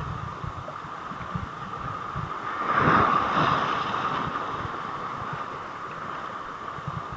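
Waves washing against the side with wind buffeting the microphone; a larger wave surges and splashes about three seconds in, then eases off.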